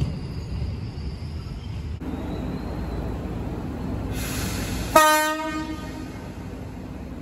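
Low running noise of a KRL commuter electric train moving off. Then a brief hiss and one loud horn blast from an approaching KRL Commuter Line electric train about five seconds in, fading away over about a second.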